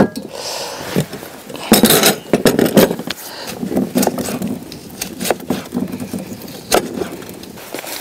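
Camp-kitchen handling sounds: metal dishes and utensils clinking and knocking at an outdoor table, with a knife cutting on a wooden board. The loudest clatter comes about two seconds in, followed by scattered single knocks.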